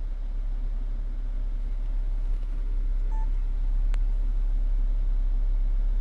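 Steady low rumble, with a single short electronic beep from a mobile phone about three seconds in as a call comes in, and a sharp click a moment later.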